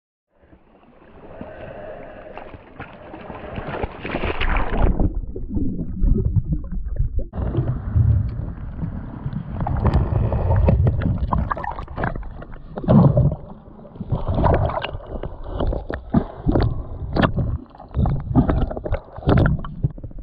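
Water moving around an underwater action camera on a freedive: a loud, muffled low rumble with frequent sharp knocks. It drops away briefly about five seconds in.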